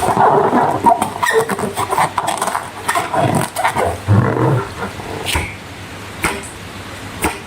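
Slime being squished and handled with a rubber balloon, giving a run of short sticky clicks and squelches with the odd rubbery squeak.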